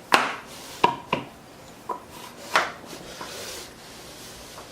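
Sharp wooden knocks and clacks, about six in three and a half seconds, some with a short ring, as the Baltic birch table saw sled is pushed and moved about and its safety piece drops into the hole at the saw insert. A faint sliding hiss lies between the knocks.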